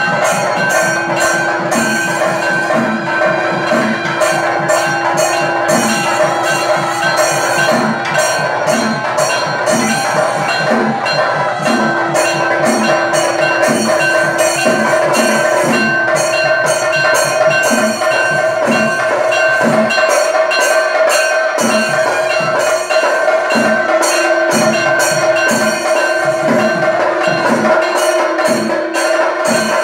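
Temple festival music: fast, dense drumbeats and cymbal strikes over long held notes that come and go every few seconds.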